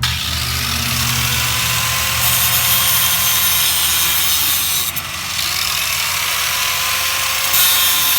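Angle grinder with a cut-off wheel cutting through seized steel axle hardware. The motor's whine sags and recovers as the wheel bites, and the cut lets up briefly about five seconds in.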